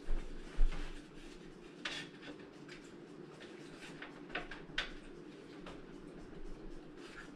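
Wooden brace board knocking and scraping against the wood box spring frame as it is pulled into place: a couple of dull thumps in the first second, then faint scattered clicks and short scrapes.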